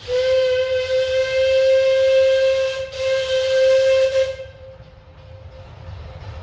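Steam locomotive whistle on a 10¼-inch-gauge miniature railway: one steady high note blown for nearly three seconds, broken off briefly, then a second blast of about a second and a half that trails away. A low rumble of the passing train runs underneath.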